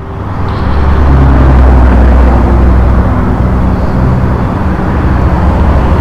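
Highway traffic going past close by: a loud, steady low rumble of vehicle engines and tyres that swells over the first second and stays loud.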